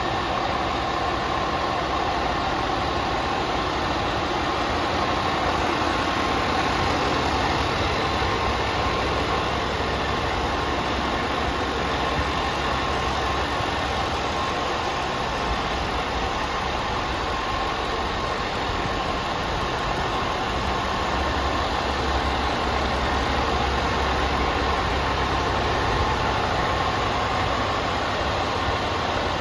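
Scania G440 tractor unit's 13-litre straight-six diesel idling steadily.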